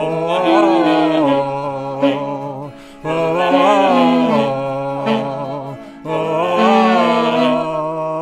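Tenor saxophone playing a solo melody in three phrases with vibrato, over held lower backing notes.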